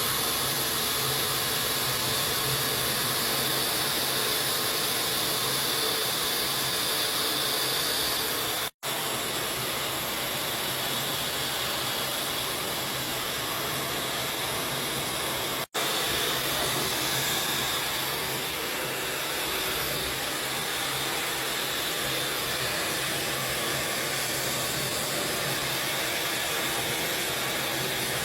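Handheld blow dryer running steadily, a loud rushing hiss of blown air over a faint motor hum, cutting out twice for a split second.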